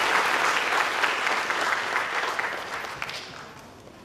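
Audience applauding at the close of a performance, the clapping fading away over the last second or so.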